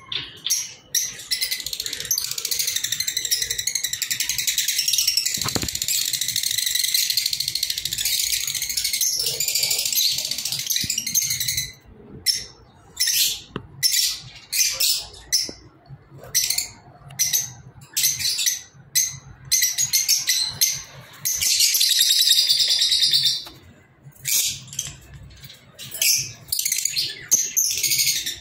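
Lovebirds chattering and calling: a long stretch of continuous shrill chatter, then a run of short sharp calls at about two a second, a second short spell of chatter, and more short calls near the end.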